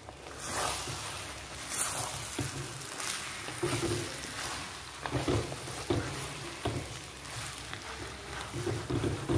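A wooden spatula stirring and scraping thick chicken masala around a heavy black cooking pot in repeated strokes, with the mixture sizzling in oil as it fries dry.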